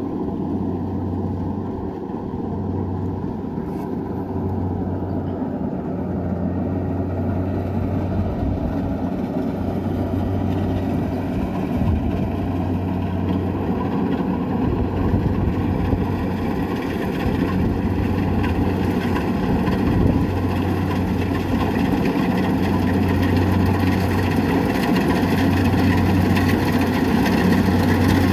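Kubota DC-70 combine harvester's diesel engine running steadily while the machine cuts rice, with a low hum. It grows gradually louder as the harvester approaches.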